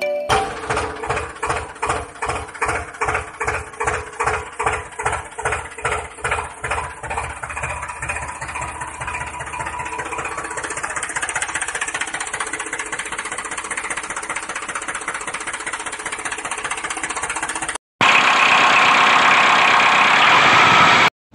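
Tractor engine chugging in slow, even beats, about three a second, that quicken and merge into a steady run from about eight seconds in. Near the end it cuts to a louder, hissier running sound.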